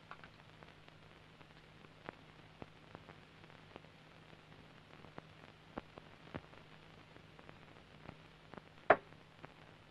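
Quiet old film soundtrack: a faint steady low hum with soft, scattered clicks and one sharper click near the end.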